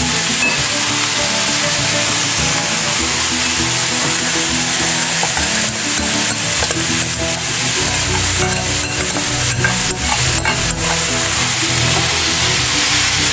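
Grated carrots sizzling in hot ghee in a stainless steel kadhai, with a wooden spoon scraping and stirring them. A series of sharp knocks of the spoon against the pan comes in the middle and second half.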